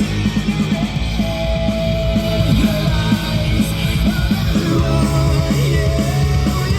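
Rock music with guitar played through a newly installed JBL Club 622 car door speaker as a test of the speaker; it plays cleanly.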